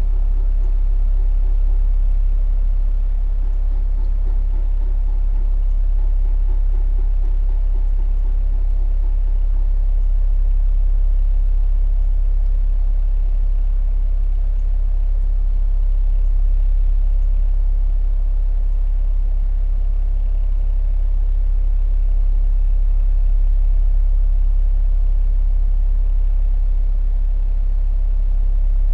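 Heat pump running: a steady, low, unbroken hum with a deep drone underneath.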